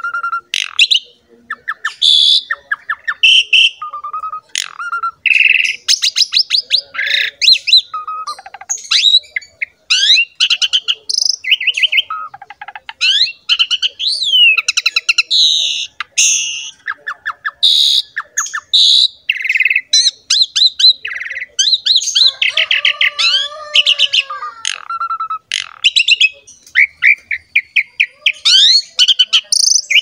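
Asian pied starling (jalak suren) in vigorous, non-stop song: a long, varied run of whistles, gliding notes, rapid chattering trills and harsh squawky calls, with only brief pauses.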